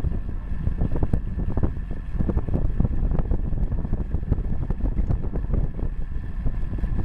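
Wind rushing over a bicycle-mounted camera's microphone on a road bike at speed, with tyre rumble on asphalt and frequent irregular knocks and rattles from the road surface.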